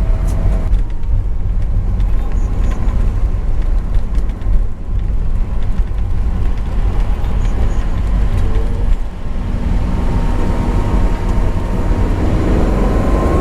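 Honda S660 on the move, its small turbocharged three-cylinder engine and the road noise making a steady low rumble. The engine note rises near the end.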